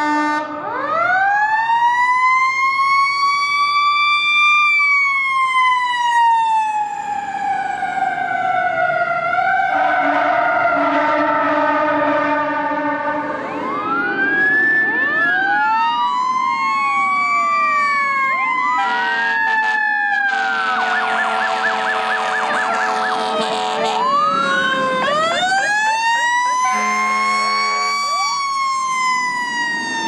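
Fire engine sirens and air horns: a siren winds up to a high howl and slowly falls away, then repeated shorter sweeps rise and fall, broken by several blasts of deep air horns, and near the end another siren winds up and falls away.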